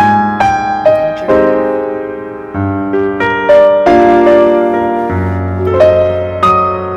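Background piano music: a slow melody of single notes over held bass notes.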